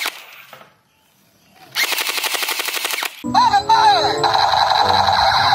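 Gel-ball blaster firing fully automatic: a fast burst of shots about two seconds in that lasts just over a second. About three seconds in, it gives way to electronic toy-gun sound effects with sliding tones over a tune.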